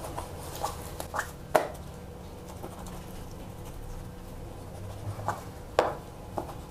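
A steel cleaver chops through raw pork belly and knocks on a plastic cutting board: about six short knocks at uneven intervals, with a longer pause between them in the middle.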